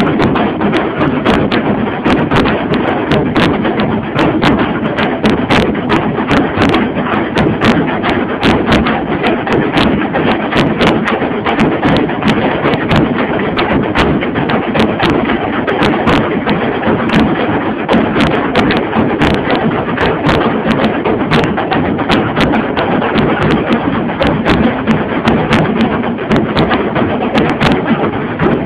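A group of tasa drums being beaten in a fast, dense, unbroken rhythm of sharp strikes, loud throughout.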